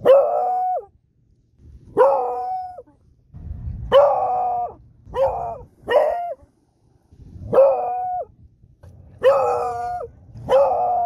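Beagle baying: about eight short, loud howls, each rising sharply, held briefly and then breaking off, roughly one every second or two. These are alert howls at something unexpected.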